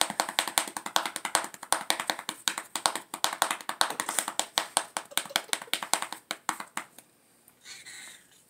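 Leather flap of a horse crop patting a Siamese cat's back and rump in quick sharp taps, several a second. The patting stops about seven seconds in, and a brief faint sound follows near the end.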